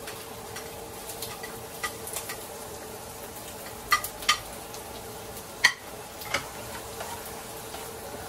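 Chopped red onion scraped from a plate into hot oil in a non-stick frying pan and starting to sizzle, with the spatula clicking against the plate and pan several times, loudest about four and five and a half seconds in.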